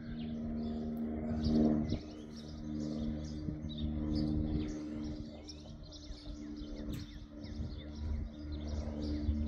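Small birds chirping over and over in the background, with a steady low hum underneath.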